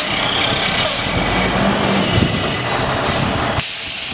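Semi-truck running as its trailer's tandem wheels ride up on a concrete curb, with a short hiss of air from the air brakes about three seconds in.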